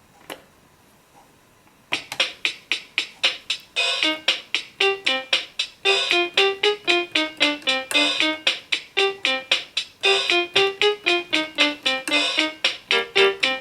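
Anpanman toy electronic keyboard playing a pop tune with its built-in rhythm box accompaniment. A steady beat starts about two seconds in and the melody joins about two seconds later. A single click comes just before.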